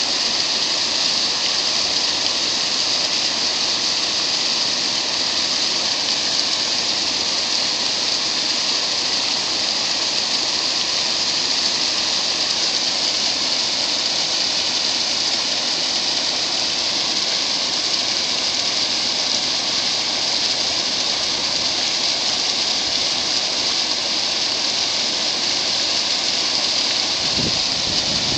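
Steady rush of river water pouring over a low dam spillway and through shallow riffles.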